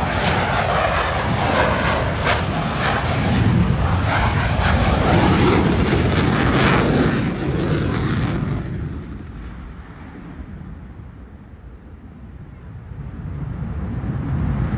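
Aircraft engine roar as a plane flies past: loud for about eight seconds, then fading away as the high end drops off, and swelling again near the end.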